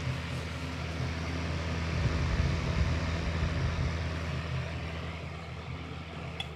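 Ravanson FH-105 fan heater running: a steady electric fan whir with a low motor hum, its heating element broken. Near the end it is switched off at the knob with a click and the whir stops abruptly.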